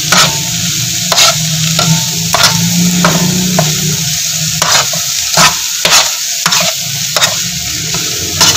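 Spatula scraping and knocking against a wide frying pan as it stirs egg, onion, tomato and green chilli frying in oil. The strokes come about once or twice a second, unevenly, over a steady sizzle.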